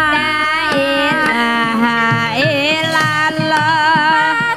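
Javanese Banyumasan gamelan music: a sinden singing a long wavering melodic line over the ensemble, with struck percussion keeping a steady beat.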